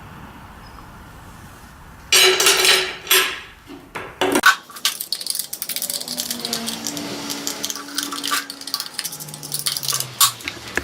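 Clicks, clinks and rattles of the chainsaw's metal and plastic parts being handled, with a louder scraping rattle about two seconds in.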